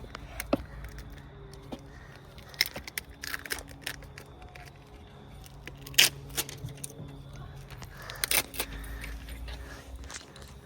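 Scattered metallic clinks and knocks of metal objects being handled, the sharpest about six seconds in and again near eight seconds, over a steady low hum.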